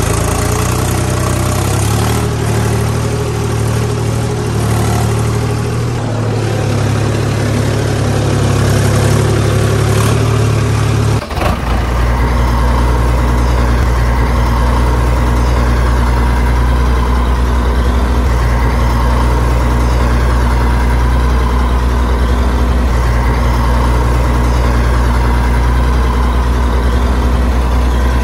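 Tractor engine running steadily. About eleven seconds in it cuts suddenly to a different, deeper engine running steadily with a strong low drone.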